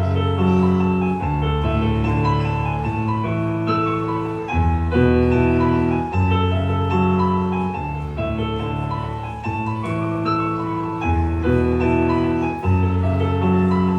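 Solo piano playing a slow piece: chords held over low bass notes, changing every second or two, with the same phrase coming round again about every six seconds.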